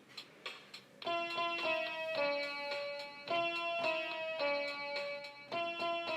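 Intro music: a melody of separate pitched notes that starts about a second in, after a few faint ticks.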